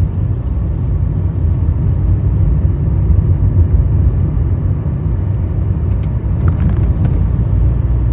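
A car being driven, its engine and tyres making a steady low rumble, with a few faint clicks near the end.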